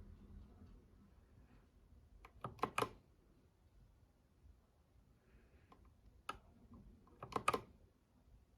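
Keys on an RK68 mechanical keyboard, fitted with red linear switches and PBT keycaps, being pressed in short groups: a few quick clacks about two and a half seconds in, a single one just past six seconds, and another quick run near seven and a half seconds.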